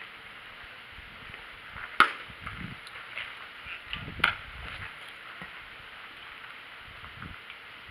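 Two sharp knocks over a faint steady background, one about two seconds in and another about two seconds later.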